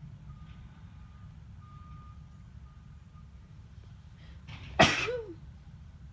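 A person sneezing once, loudly, about five seconds in, with a short breath in just before and a brief voiced tail after.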